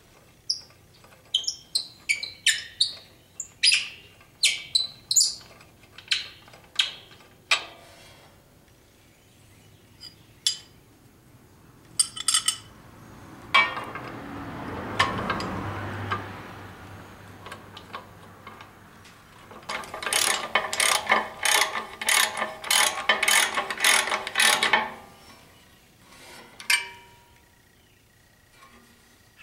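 Metal tools and parts clinking and clanking against a mower's gearbox bracket, then a scraping rush. Near the end a socket ratchet wrench clicks in a quick run of strokes for about five seconds as a bolt is worked out.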